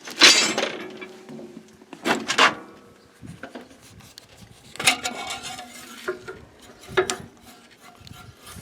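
Metal clanking and clinking: four separate knocks, each ringing briefly, with lighter rattling between them, as metal parts or tools are handled during work on the skid steer.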